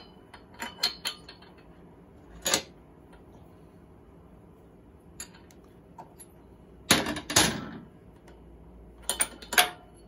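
Metal hand tools and parts being handled while the spark plug is taken out of a small two-stroke engine: scattered clicks and clinks, with louder metallic rattles about seven and nine seconds in.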